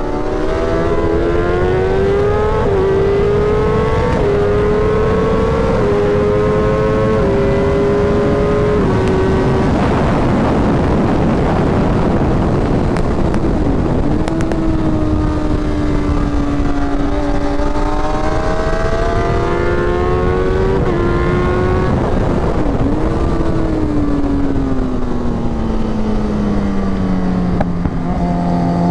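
Kawasaki ZX-10R superbike's inline-four engine on a flat-out track lap, with loud wind rush. It revs up and shifts up through the gears, the pitch climbing and stepping down at each shift, about five times in the first nine seconds. Later it drops in pitch twice at downshifts, then winds down through a long slowdown before pulling hard again near the end.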